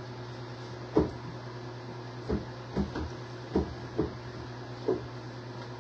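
Six short, dull knocks and clunks of things being handled and set down during the fridge cleaning, spaced unevenly over a few seconds, over a steady low hum.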